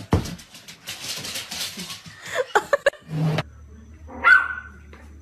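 Dogs making short barks and yips amid the rustling and knocking of their movement. The loudest is a single short, high yip a little past the middle.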